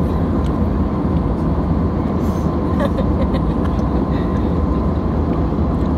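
Steady, even cabin noise of a jet airliner in flight, the engines and rushing airflow heard from inside the cabin at a window seat.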